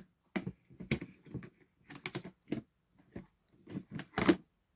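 Irregular clicking and knocking of hard plastic toolboxes being handled, about a dozen short clacks with the loudest just after four seconds in.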